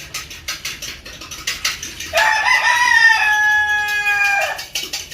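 A rooster crowing once, a long drawn-out call lasting about two and a half seconds that starts about two seconds in. A quick run of faint clicks comes before it.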